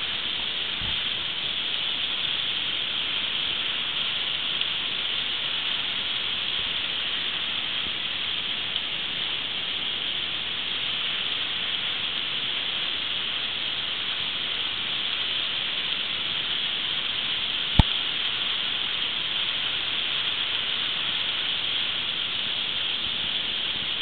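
Steady rushing hiss of a thin, roughly 75-foot waterfall plunging from a rock overhang onto boulders. A single sharp click about three quarters of the way through.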